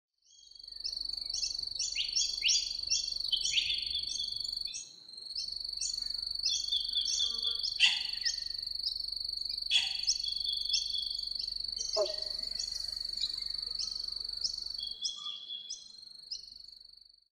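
Birds and insects calling: a steady high-pitched insect drone under rapid, repeated chirping calls, with a few sharper calls standing out around the middle. It fades out near the end.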